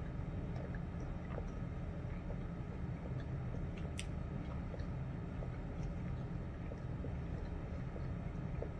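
Steady low background hum with faint scattered ticks and one sharper click about four seconds in.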